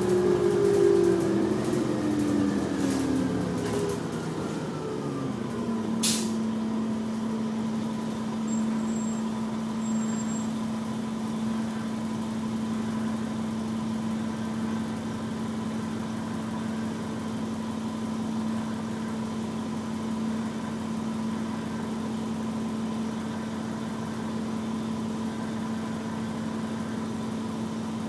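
Detroit Diesel Series 50 engine of a 1996 New Flyer D40LF bus, heard from inside the cabin, falling in pitch as the bus slows over the first six seconds. A brief sharp noise comes about six seconds in, then the engine idles with a steady hum while the bus stands still.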